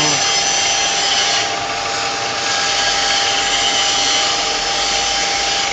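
Plastic cup ring-cutting machine running steadily: a constant motor whine with an even hiss.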